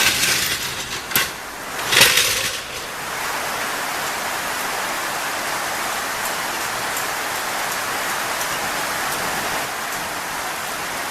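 Steady hiss of rain falling outside. In the first two seconds there are a few sharp knocks or clatters.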